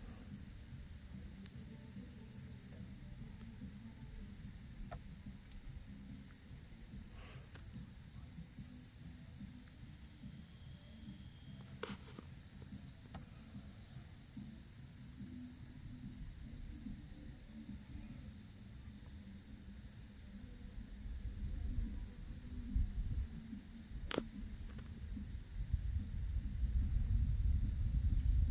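A cricket chirping at a steady pace, short high chirps about once a second. A low rumble grows louder over the last several seconds, and there are a few faint clicks.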